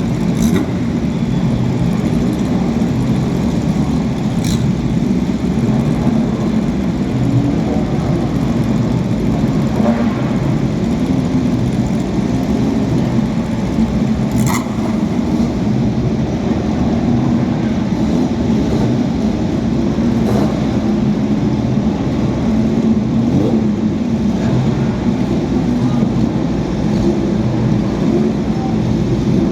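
Historic racing car engines running at speed: a loud, steady engine sound that does not let up, with a few brief sharp clicks.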